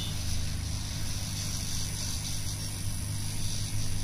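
Hot air rework station blowing hot air through its nozzle to heat a chip on a mobile phone circuit board: a steady fan hum with an airy hiss.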